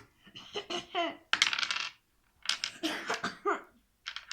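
Pet budgerigar chattering in short, voice-like phrases, with a harsh raspy burst about a second and a half in, like a child's cough.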